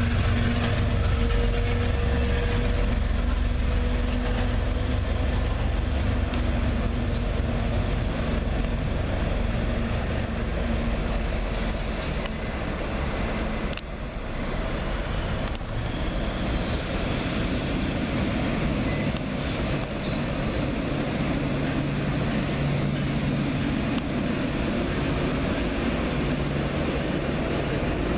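MBTA commuter rail diesel locomotive running close by with a steady engine drone as its train moves past. About halfway through the sound changes to another diesel train approaching, its engine rumble growing fuller with a low steady hum.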